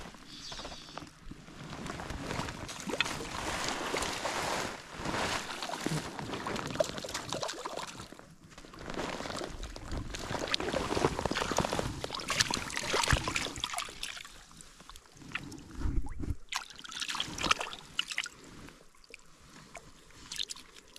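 Water splashing and sloshing in irregular bursts as a hooked trout is played at the surface and scooped into a landing net.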